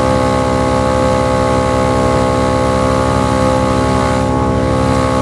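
Small SmittyBilt 2780 12-volt portable air compressor running under load, pumping up a large off-road tire, with a steady motor hum over a rapid even piston pulsing.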